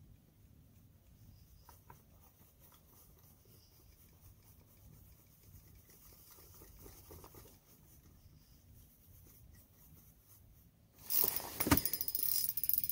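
Quiet for most of the stretch. Then, near the end, an ice-fishing reel is cranked, making a loud, rapid run of clicks.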